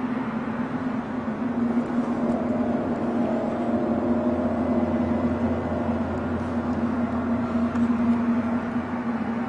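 A steady, low, droning hum of the kind reported as an unexplained 'strange sound' in the sky, with a deeper rumble joining about four seconds in and fading before the end.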